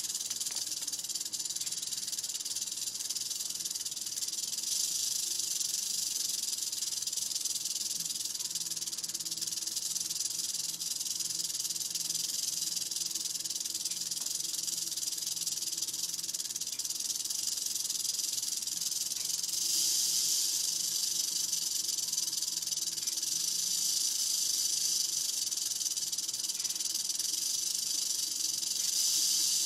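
Mohave green rattlesnake's rattle buzzing without a break, a steady high-pitched hiss that swells louder a few times: the snake is agitated.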